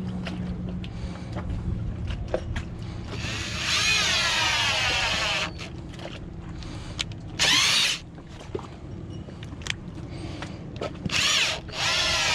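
Power drill driving screws into wood, running in several bursts with the motor's pitch rising and falling. There is a longer run about three seconds in, then shorter bursts.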